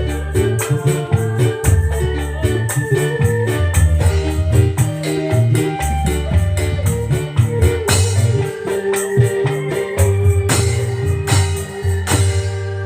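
Instrumental band music played through a sound system: an electronic keyboard with an organ sound carries the melody over a heavy bass line and a steady beat of shaken and struck percussion.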